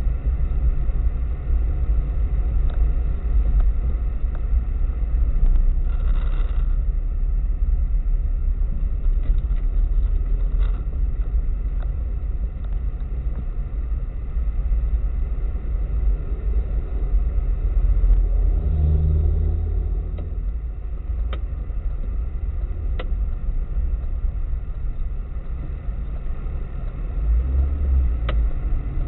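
Car driving through town, heard from inside the cabin: a steady low engine and road rumble, with a few faint clicks. The engine hum grows stronger for a couple of seconds about two-thirds of the way through.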